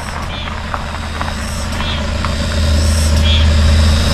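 A vehicle engine idling with a steady low hum that gets somewhat louder about two and a half seconds in. Short high chirps recur about once a second over it.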